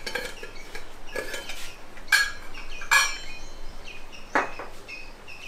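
Stainless steel kitchenware clinking: a steel canister and spoon knocking against steel pots on a gas stove, about five sharp clinks with scraping between them. Short, quickly repeated bird chirps join in the second half.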